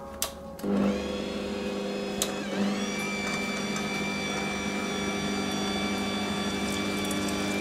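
Electric stand mixer running its citrus-press attachment, juicing orange halves: a click, then the motor starts under a second in and runs with a steady hum. Its pitch sags briefly about two seconds in under load, then recovers.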